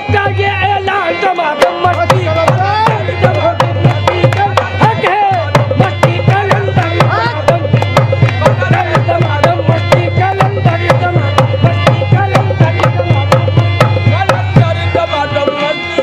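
Qawwali music: a harmonium and a singer's wavering melodic line over a fast, steady drum rhythm. The beat drops out briefly about five seconds in and again near the end.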